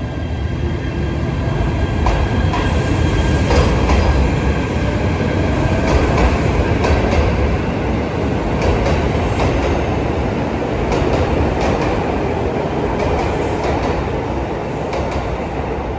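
JR Hokkaido 721 series electric multiple unit running on the rails: a steady rumble with repeated wheel clicks over rail joints. A faint whine in the first couple of seconds fades away.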